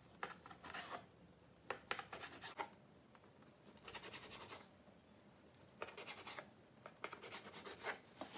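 Small kitchen knife cutting raw salmon on a plastic cutting mat: faint quick taps and scrapes of the blade against the board, in short runs of several strokes with pauses between them.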